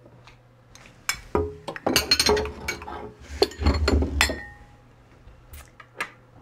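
Glass bowls and a utensil clinking and knocking as they are picked up and set down. The clatter is busiest from about one to four seconds in, with a few clinks ringing briefly.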